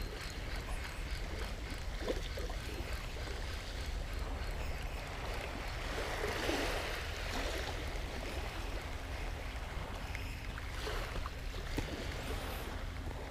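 Steady wind and small waves washing at the edge of a sandy beach, with a low rumble underneath; the wash swells briefly about six seconds in.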